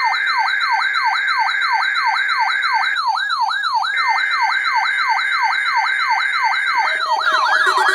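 Weather radio alert alarm sounding for the weekly tone-alarm test: an electronic warble sweeping up and down about four times a second over steady tones. The steady tones drop out for about a second near the middle, and near the end a second, faster warble joins in.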